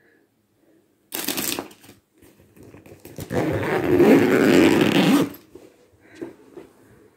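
A soft fabric luggage bag being handled and zipped shut: the fabric rustles and the zip rasps. There is a short burst about a second in, a longer one of about two seconds near the middle, and then a few small rustles.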